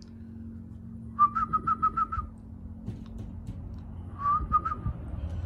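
Quick, evenly pitched chirping whistles, a run of about seven and then, a couple of seconds later, a shorter run of about four, as a person whistles to catch a puppy's attention.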